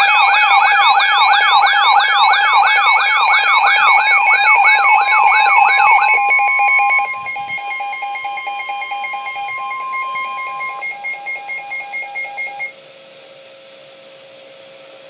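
Emergency weather alert tones for a severe thunderstorm warning: a loud, fast warbling siren tone over steady tones. About six seconds in the warble stops, leaving pulsing beeps and a steady tone that drop out in stages, until only a faint hum remains.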